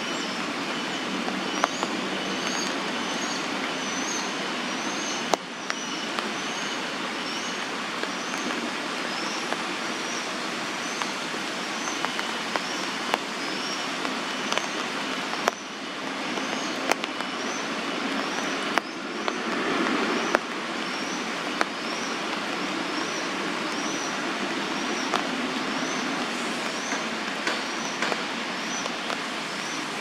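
Juvenile crested goshawk begging: a high-pitched, rising chirp repeated steadily about one and a half times a second, over a steady background rush with a few sharp clicks.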